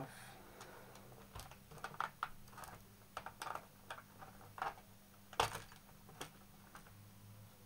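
Scattered light plastic clicks and taps from a laptop's underside access panel being lifted off and handled, with a sharper knock about five and a half seconds in.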